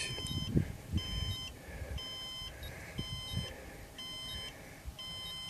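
Rocket flight-computer altimeter beeping out its recorded peak altitude: a high-pitched beep about once a second, six in a row. They are part of a run of seven that reads out the first digit, 7, of a 7,558-foot apogee.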